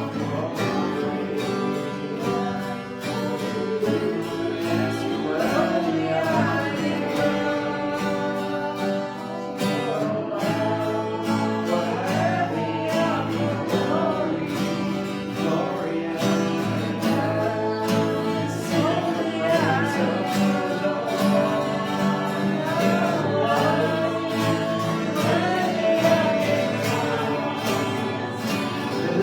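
Worship music: voices singing to an acoustic guitar accompaniment.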